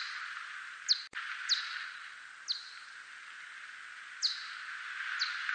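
Echolocation calls of a whiskered bat (대륙쇠큰수염박쥐, a Myotis species): five short, steep downward chirps at irregular intervals over a steady hiss. A single sharp click comes a little after a second in.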